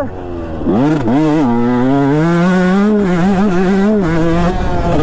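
2019 KTM 150 SX single-cylinder two-stroke dirt bike engine being ridden. The revs fall away briefly at the start, then the throttle opens again under a second in. The revs climb over the next couple of seconds and hold, wavering, with a short dip near the end.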